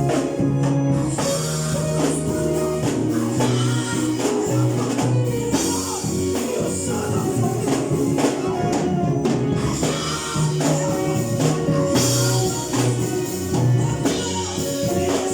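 Choir singing a song, with instrumental accompaniment and a steady shaken-percussion beat.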